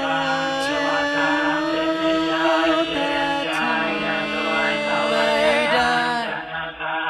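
Buddhist chanting in Pali, layered voices holding long steady notes over a song's backing music. About six seconds in, the high end drops away and the chant turns into quicker, broken recitation.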